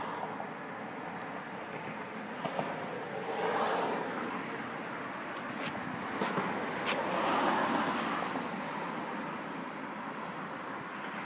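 Outdoor street background noise, swelling louder twice, with a few sharp clicks in the middle.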